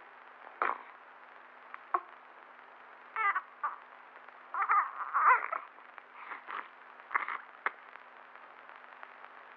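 Newborn baby whimpering and giving short, broken cries in a string of brief sounds, the loudest about five seconds in, over a faint steady hum.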